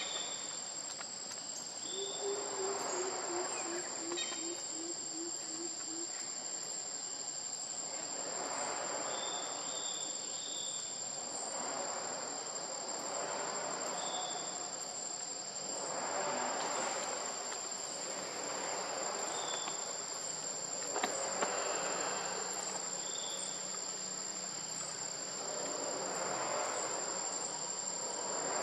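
Steady chorus of insects, a continuous high-pitched ringing drone, with a few short high chirps scattered through it. About two seconds in, a brief run of rapid low notes.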